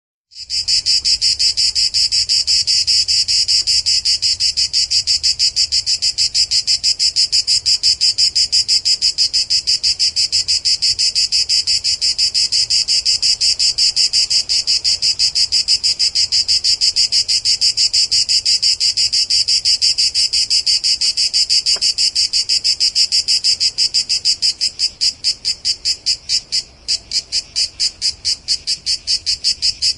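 Cicada singing: a loud, shrill buzz made of rapid pulses, about five a second. In the last several seconds the pulses become more separate, with one brief break.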